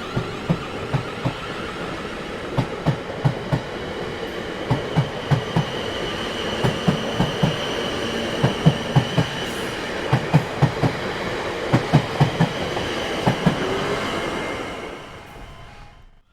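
Train running past, its wheels clattering over rail joints in quick groups of thumps over a steady rumble, with a faint high whine in the middle. The sound fades away near the end.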